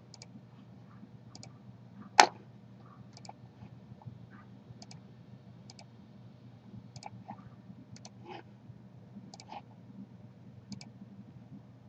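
Computer mouse clicking, about one click every second or so, each a quick double tick, with one sharper, louder click a couple of seconds in.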